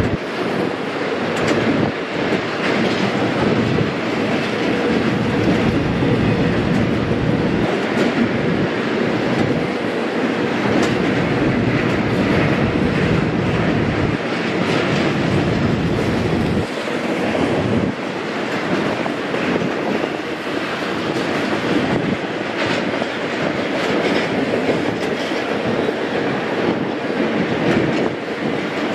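Double-stack intermodal freight train's well cars rolling past: a steady, loud noise of steel wheels on rail, with occasional clicks.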